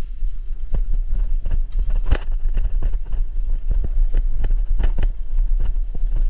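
Bicycle rolling over a loose gravel track, with irregular crunches and clicks of stones under the tyres over a steady low rumble of wind on the microphone.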